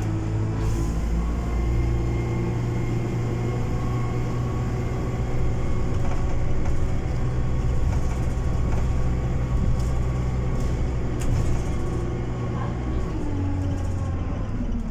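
City bus engine and drivetrain heard from inside the passenger cabin while the bus is under way. The engine note climbs in pitch at the start, holds steady, then drops as the bus slows about twelve seconds in, rising again just at the end.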